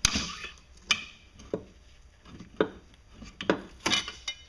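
Sharp metal knocks and taps, about seven irregularly spaced, as a tool works at the ring holding the U-joint bellows onto a Mercruiser Bravo bell housing to break it loose; the last few ring briefly.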